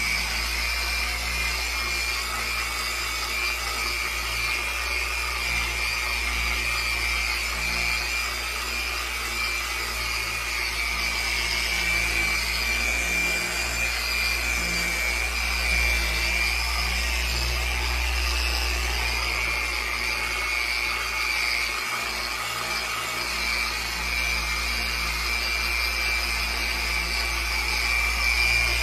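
Electric polisher with an orange foam cutting pad running steadily with a constant high whine, buffing polishing compound into the painted surface of a model-glider wing.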